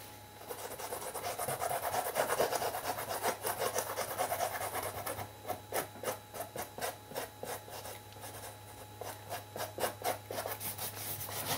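A paintbrush scrubbing acrylic paint across a canvas in short back-and-forth strokes, quickening to a rapid run of strokes in the second half.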